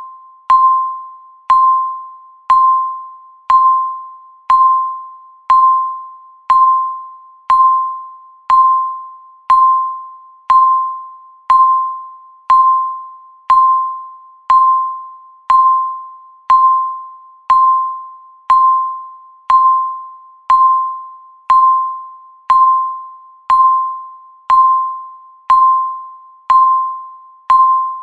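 Digital countdown timer beeping once a second: a short, single-pitched ding that strikes sharply and fades before the next, about 28 in a row.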